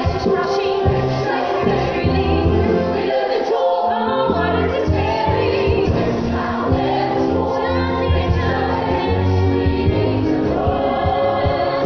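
Musical-theatre ensemble chorus singing with orchestral accompaniment, recorded live from the audience in a theatre.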